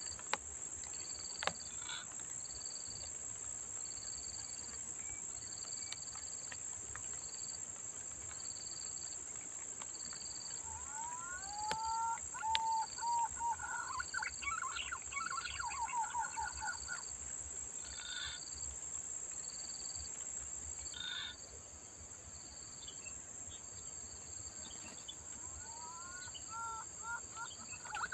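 Steady high-pitched drone of insects with a short high chirp repeating about every second and a half. Twice, a bird sings a run of wavering whistled notes, from about the middle for several seconds and again near the end.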